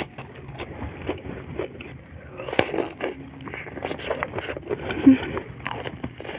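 Close-miked eating sounds: a person biting and chewing sambal-coated prawn and petai beans with wet, crackly mouth noises and sharp clicks. A brief low hum comes about five seconds in.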